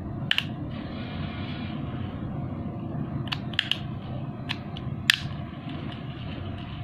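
A few sharp clicks and a brief rustle from objects being handled, over a steady low hum. The clicks come near the start and in a cluster about three to five seconds in.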